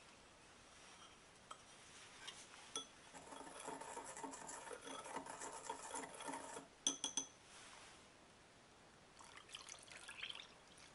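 Wire whisk stirring dry sugar in a small glass bowl: a fast, scratchy rattle lasting about four seconds, ending with three sharp clinks. Near the end, milk pours into the bowl.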